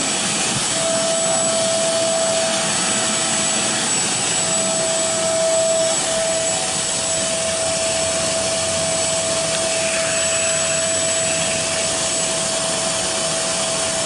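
Carpet cleaner running steadily while its hose hand tool sucks water up from the carpet: a constant rush of suction air with a steady whine through it.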